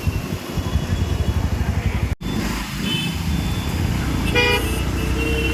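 Road traffic noise with a ragged low rumble of wind and engine while travelling on the road. A vehicle horn honks briefly about four and a half seconds in, and another horn tone starts near the end.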